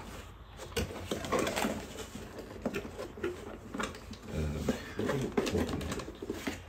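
Cardboard box of a domino set being handled and opened by hand, its flaps and packaging giving irregular rustles and clicks.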